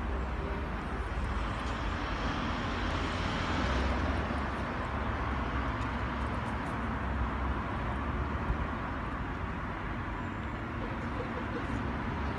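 Steady hum of road traffic, swelling a little a few seconds in.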